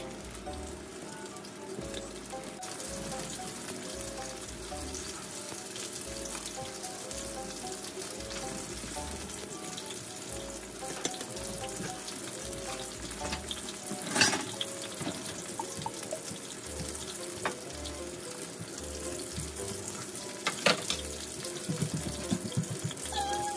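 Breaded cutlets frying in shallow oil in a stainless steel frying pan: a steady sizzle, with a sharp knock about two-thirds of the way in and another near the end. Light background music with a repeating melody and beat plays under it.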